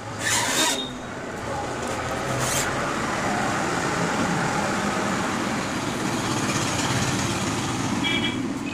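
Steady background road-traffic noise, with two short noisy bursts in the first few seconds and a brief high tone near the end.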